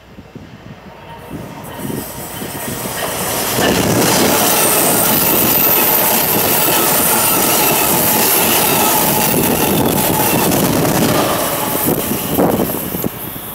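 Amtrak Acela high-speed electric trainset passing through a station at speed. A rush of wheels on rail builds over the first few seconds, holds loud for about seven seconds as the cars go by, then falls away near the end as the train recedes.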